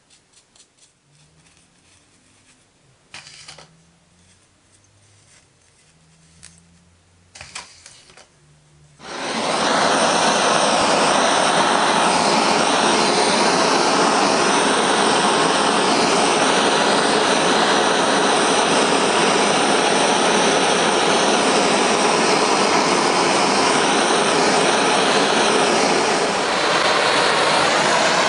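Gas blowtorch burning with a steady, loud rushing hiss, heating a copper boiler shell for soldering. It starts suddenly about nine seconds in. Before that there are only a few faint light clicks as flux is brushed onto the joints.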